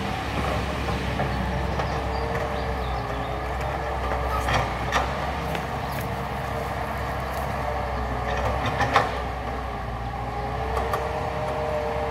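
Caterpillar 312B hydraulic excavator's diesel engine and hydraulics running under load, their whine dipping and rising in pitch as the boom swings and digs. A few sharp knocks stand out, the loudest about nine seconds in.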